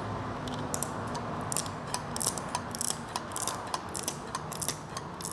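Thumb-pump oil can pumped again and again, its lever clicking irregularly with short hissy squirts as it wets the wire-mesh air filter elements with oil. A steady low hum sits underneath.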